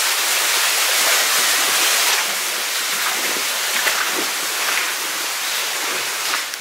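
Water rushing steadily down a mine winze, a little louder in the first two seconds.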